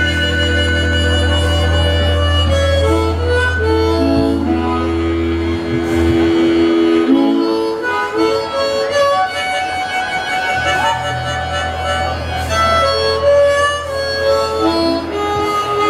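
Live band with electric guitar, bass and drums, the singer playing an amplified harmonica solo through the stage PA. The harmonica melody moves in held and stepping notes over a steady bass line that drops out for a few seconds about seven seconds in.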